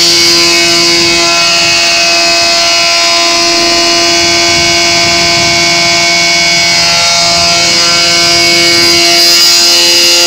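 Pneumatic unloading of a dry bulk trailer: the truck's PTO-driven blower running with a steady whine while air rushes through the open product and aerator valves, blowing the last product from the tank down the line.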